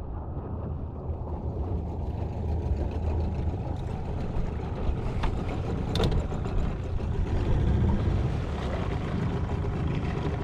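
Steady low rumbling noise, with a sharp click about six seconds in.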